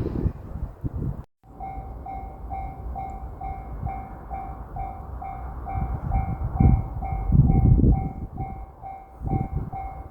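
Japanese railroad crossing warning bell clanging, an evenly repeating electronic ding a little over twice a second, which starts after a sudden cut a little over a second in. Low rumbling noise swells and fades under it, and is loud in the first second.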